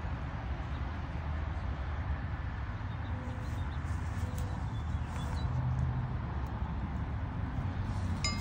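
Steady outdoor background noise, a low rumble under an even hiss, with a few faint bird chirps in the middle and a short chirp near the end.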